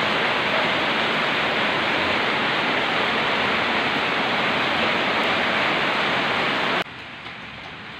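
Heavy rain pouring down on a garden: a loud, steady hiss. Near the end it drops abruptly to a much quieter steady hiss.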